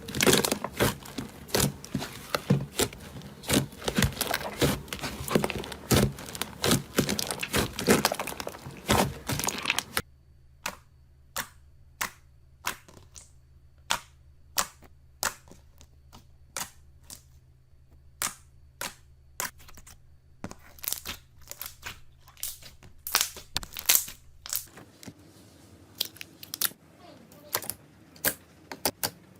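Slime being squeezed and worked by hand, popping and crackling: dense crackling for about the first ten seconds, then separate sharp pops about one or two a second, and a softer crackle near the end.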